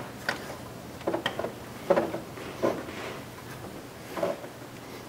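Spark plug wire boots being handled and pushed onto the towers of a Ford ignition coil pack: about half a dozen short clicks and knocks, spaced irregularly.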